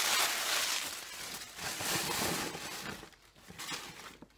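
Tissue paper and brown packing paper rustling and crumpling as hands unwrap items from a box, dying away about three seconds in.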